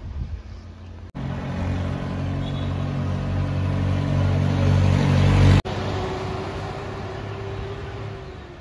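Road vehicle engine running and growing louder for several seconds. It then cuts off suddenly to a steadier, quieter engine hum.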